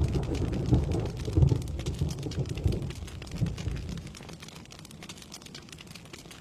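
Steady rain falling, with a rolling rumble of thunder that fades away about four seconds in, leaving only the patter of rain.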